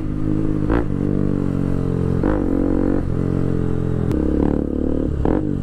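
Bajaj Pulsar RS200's single-cylinder engine through an Akrapovic full titanium exhaust with the dB killer removed, running steadily at moderate revs. Its pitch dips and shifts briefly about three times as the throttle changes.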